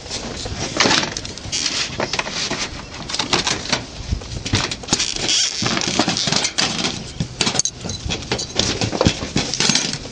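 Irregular clattering and knocking of roofing sheets being handled and fitted on a corrugated metal roof.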